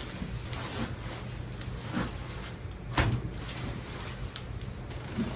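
A few sharp pops during a chiropractic adjustment, the loudest about three seconds in, over a steady low room hum: the patient's spinal joints cracking as they are manipulated.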